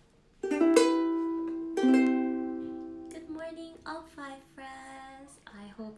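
Two strummed ukulele chords, about a second and a half apart, each left ringing and fading out; speech starts about halfway through.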